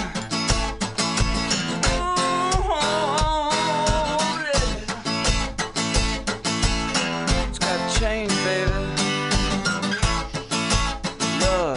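Acoustic guitar strummed in a steady rhythm, with a voice singing long, wavering notes over it at times.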